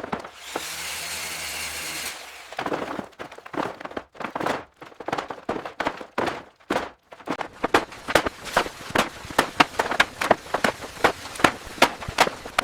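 Renovation work sounds: a power tool runs steadily for about two seconds, then a long run of sharp knocks and taps follows, quickening to about two or three a second.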